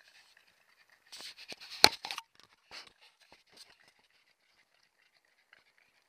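Mountain bike clattering and rattling over rough trail: about a second of scraping noise with one sharp knock near its end, then a few faint ticks.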